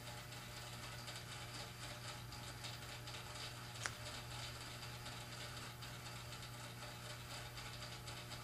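Faint scratching of a paintbrush working oil paint on a canvas, over a steady low hum, with one sharp click about four seconds in.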